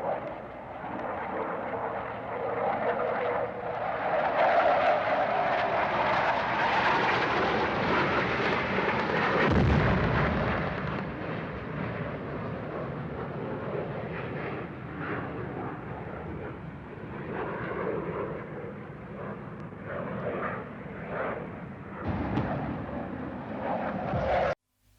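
Air strike sound effect: a military jet aircraft's roar builds and passes, a heavy explosion goes off about ten seconds in, then a string of scattered explosions and blasts follows. The sound cuts off abruptly near the end.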